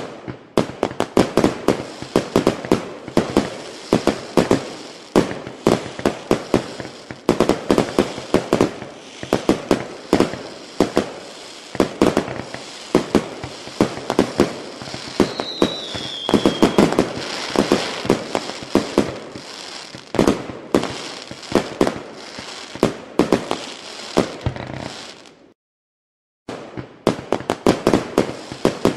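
Fireworks bursting in a dense, rapid string of bangs over continuous crackle, with a short falling whistle in the middle. The bangs break off for about a second near the end, then start again.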